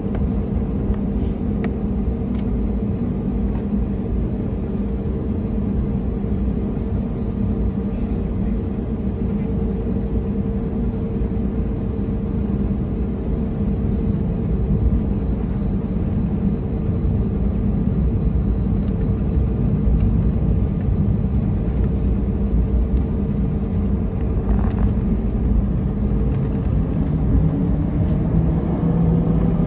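Airbus A321neo's CFM LEAP-1A turbofan engines heard from inside the cabin, running at taxi power: a steady hum over a low rumble. Near the end the engine tone starts to rise as the engines spool up for the takeoff roll.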